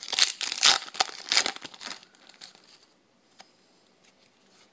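Yu-Gi-Oh booster pack's foil wrapper crinkling and tearing as it is ripped open, loud for about the first two seconds. It then fades to faint rustling as the cards are slid out, with one light click.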